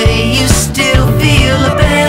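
Background song with a singing voice over a steady beat.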